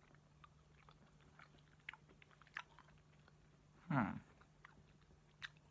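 Faint mouth sounds of a person chewing a chewy Airhead taffy candy: soft, scattered small clicks and smacks. About four seconds in there is a short closed-mouth hum, a tasting "mm".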